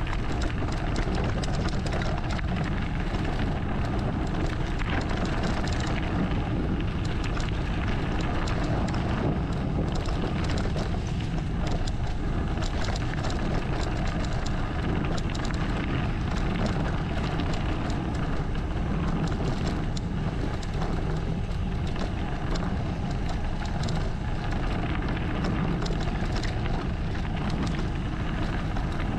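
Enduro mountain bike rolling fast downhill on a dirt and leaf-covered trail: steady wind rumble on the camera's microphone, tyre noise, and frequent small rattles and clicks from the bike over rough ground.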